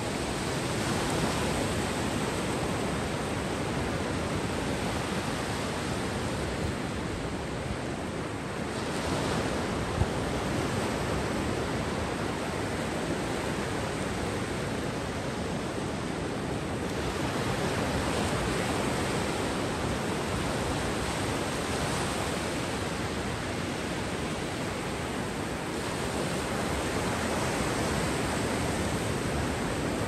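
Sea waves breaking on a beach: a continuous wash of surf that swells with a fresh break about every eight to nine seconds. One short knock sounds about ten seconds in.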